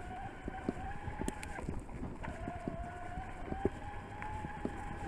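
Shimano Steps E8000 mid-drive motor of an electric mountain bike whining steadily under load on a climb, its pitch slowly creeping up. The whine cuts out briefly just under two seconds in, then resumes, with scattered knocks and rattles from the bike throughout.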